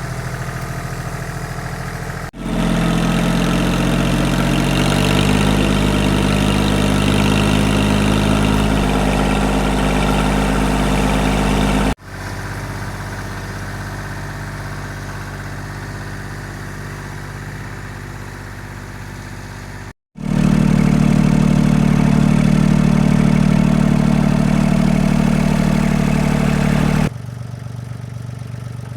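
Yanmar FX20D compact tractor's diesel engine running steadily in several spliced shots. It jumps louder about two seconds in, its pitch steps about between four and nine seconds, it drops quieter at about twelve seconds, comes up loud again at about twenty, and falls back near the end.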